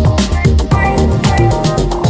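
Background electronic dance music with a steady beat and a strong bass line.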